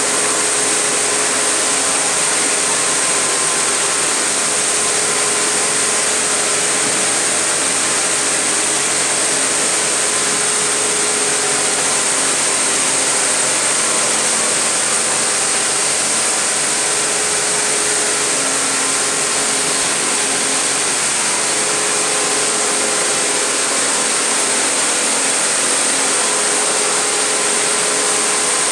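Industrial machinery running steadily: a continuous, even mechanical noise with a high-pitched whine over it.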